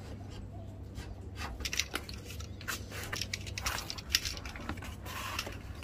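Snap-off utility knife slicing through a 6 mm EVA foam sheet laid on cardboard, then the cut sheet being lifted and handled: an irregular run of scratchy crackles and ticks, with one sharp click about four seconds in, over a steady low hum.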